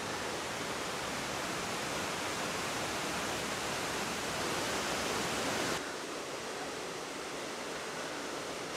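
Steady rush of a river tumbling down a rocky gorge, running high after heavy rain. The rush drops suddenly a little about six seconds in.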